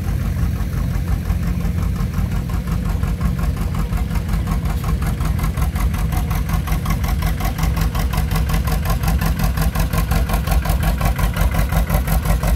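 Old tractor engine running steadily with an even beat of exhaust pulses, the pulses growing more distinct from about five seconds in.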